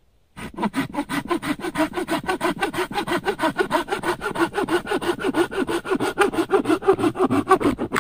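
Hand saw cutting through a length of firewood with quick, even back-and-forth rasping strokes, starting about half a second in.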